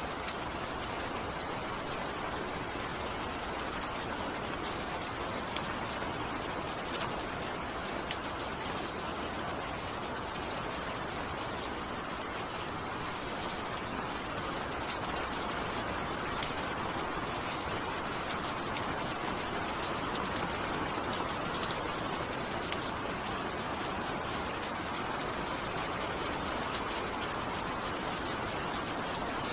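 Steady rain falling: an even wash of patter with scattered sharper drips that stand out now and then.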